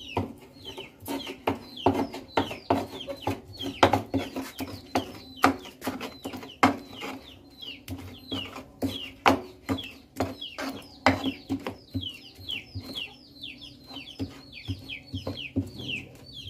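A stone pestle (ulekan) grinds and pounds chilli sambal in a terracotta mortar (cobek). It makes rapid, irregular knocks and scrapes, with short high falling chirps throughout.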